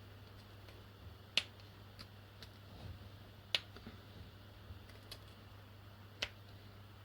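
Small flat screwdriver clicking and ticking against a brake caliper while prising off its rubber boots: three sharp clicks with lighter ticks between, over a faint steady low hum.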